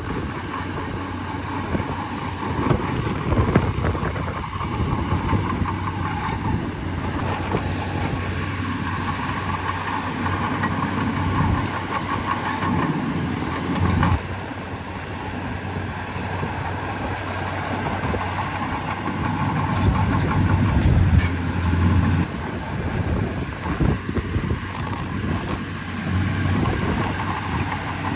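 Heavy diesel earthmoving machinery running under load, its loudness swelling and easing as it works.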